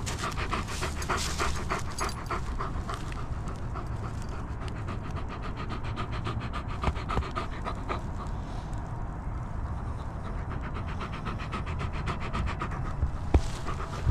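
A dog panting fast and steadily, with wind rumbling on the microphone. The panting fades out about two seconds before the end, and a couple of sharp knocks come near the end.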